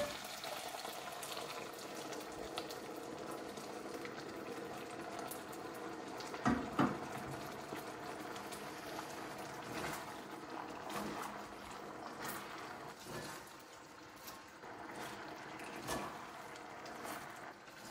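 Chicken-broth glaze bubbling and simmering in a hot wok with pieces of chicken as it thickens, with a spatula stirring and a few short knocks against the pan.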